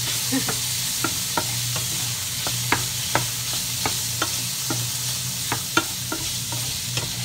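Shrimp and squid sizzling in a nonstick frying pan while a wooden spatula stirs them, its strokes knocking and scraping on the pan two or three times a second. A cooker hood fan hums steadily underneath.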